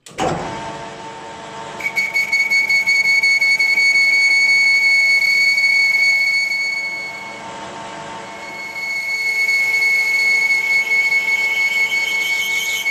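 Metal lathe spinning up, then a boring bar cutting inside a cast gear ring held in the chuck, giving a steady high-pitched squeal. The squeal fades about halfway through and comes back for the rest of the cut.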